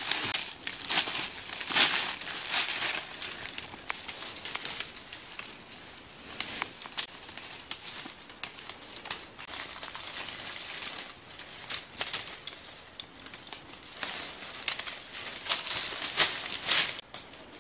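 Dry leaf litter and twigs crunching and crackling in irregular bursts, with rustling of branches and vines being handled.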